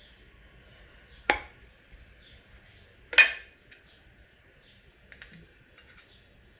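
Wooden rolling pin rolling out paratha dough on a wooden board, with two sharp clacks: one about a second in and a louder one about three seconds in as the pin is put down. A few faint taps follow.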